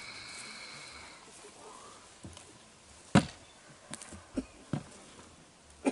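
A few sharp, scattered knocks or clicks, the loudest about three seconds in, after a faint high ringing tone dies away in the first second or so.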